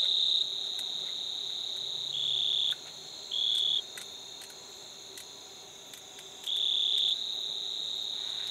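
Crickets trilling steadily at two high pitches, the lower trill growing louder in short stretches several times, for about half a second each.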